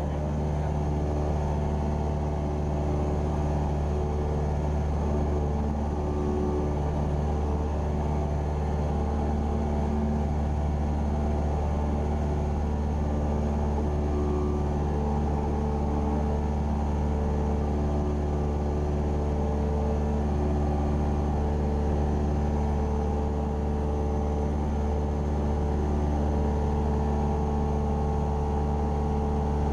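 Cessna 172R Skyhawk's four-cylinder Lycoming piston engine and propeller droning steadily in cruise flight, heard inside the cockpit: a strong low hum with a stack of steady tones above it and no change in level.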